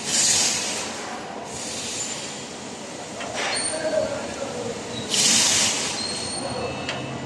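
Hissing bursts of spray on the brake, three of about a second each, with faint short squeaks between them.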